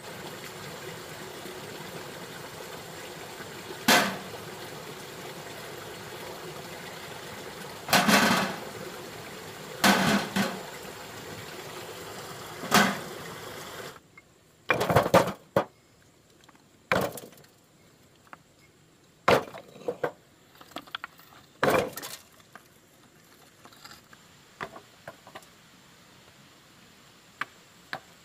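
Stones knocking and clinking against one another as cobblestones are handled and set into a wall: a dozen or so sharp knocks a few seconds apart, some in quick pairs. A steady hiss sits under the first half and drops away about halfway through.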